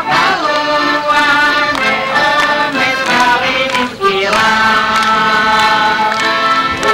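Several women singing a song together, accompanied by accordion and flute, with long held notes. The sound dips briefly about four seconds in.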